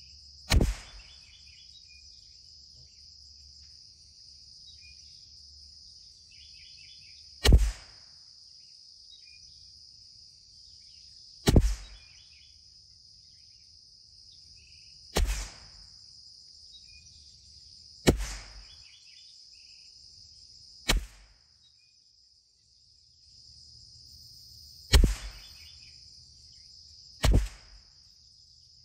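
CZ 457 MTR bolt-action .22 LR rifle firing Eley Contact ammunition: eight single shots, each a sharp report, spaced about three to seven seconds apart.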